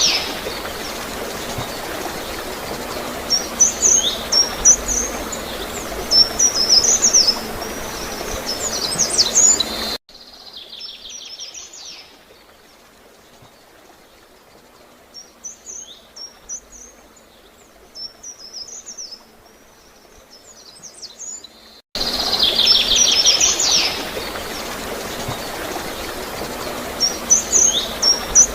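Water gurgling steadily while small songbirds give short, high chirps in scattered clusters, with a rapid trill at the start. About ten seconds in, the whole sound drops much quieter for about twelve seconds, then comes back at full level.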